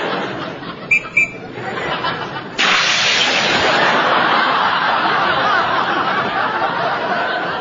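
Studio audience laughing, swelling suddenly about two and a half seconds in and carrying on loudly, after a couple of small sharp clicks.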